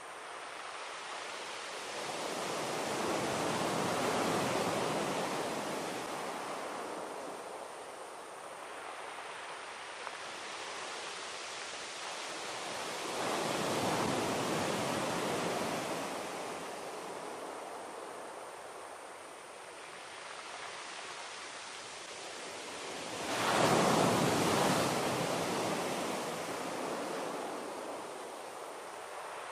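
A rushing, surf-like noise that swells and fades in slow waves about ten seconds apart, three times. The last swell comes up more suddenly and is the loudest.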